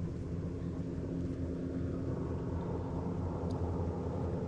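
Steady low engine drone with a faint constant hum.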